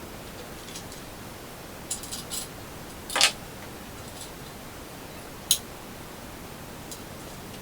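Sharp metallic clicks and clinks of bolts and hand tools being handled while the rear fuselage of a Sky Ranger microlight is bolted together: a handful of scattered clicks, the loudest about three seconds in.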